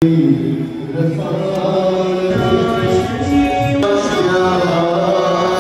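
Devotional Hindu chanting sung in long held notes, as in a Ganga aarti hymn.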